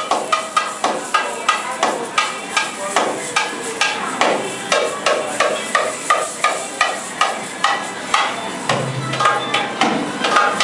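Darbuka being played solo in a steady, fast rhythm of sharp, ringing strokes, about three main beats a second with quicker strokes between, and deeper low strokes near the end.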